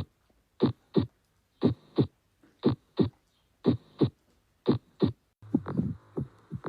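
Heart sounds heard through a stethoscope: clean lub-dub pairs (first and second heart sounds) about once a second, with silence between the beats. About five seconds in, a different heart recording begins, its beats faster and filled in by a continuous whooshing noise between them, as of a heart murmur.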